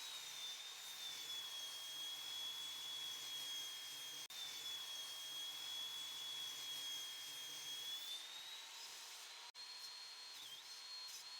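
Table saw running and ripping pine strips, a steady high motor whine over a hiss of cutting. The pitch sags slightly under load, holds through the cut and recovers near the end of it, and a few short dips follow.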